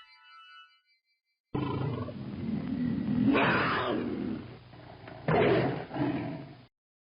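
A big cat roaring for about five seconds, starting about a second and a half in, with several louder swells before it cuts off abruptly.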